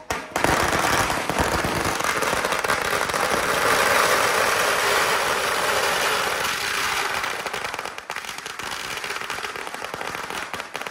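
Firecrackers going off in a rapid, continuous crackle, thinning out after about eight seconds.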